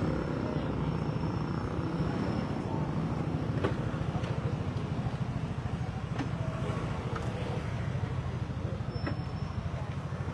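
A motor vehicle's engine running steadily: a low rumble with a fast, even pulse, with a few faint clicks.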